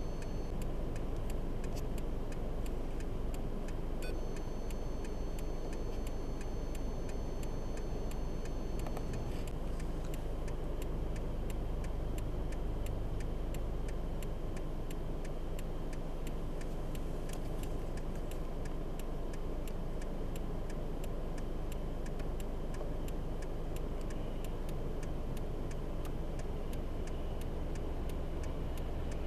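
Steady low rumble of a motor vehicle, with a regular sharp ticking of about two ticks a second running through it.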